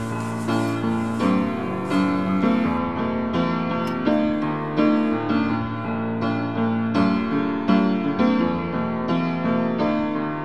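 Background piano music, a gentle run of notes struck at a steady, unhurried pace.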